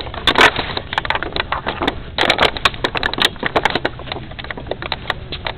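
Hurried footsteps crunching over grass and ground, with a dense run of irregular crackles and clicks.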